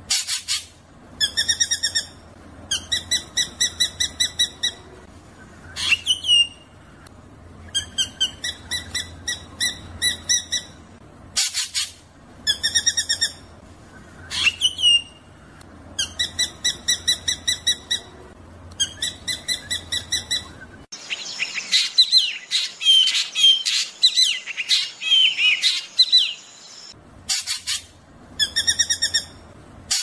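Drongo song: repeated rolling runs of rapid, evenly spaced notes, each about a second long, broken by a couple of rising whistles and a few sharp cracks. About two-thirds of the way in, a stretch of dense, varied chattering runs for several seconds.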